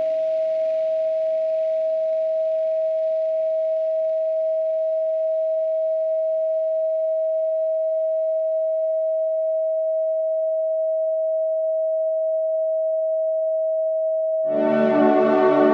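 Steady electronic sine tone at about 639 Hz, a single unwavering pitch, with faint ambient tones that fade out over the first several seconds. Near the end, a full chord of ambient synthesizer music comes in over it.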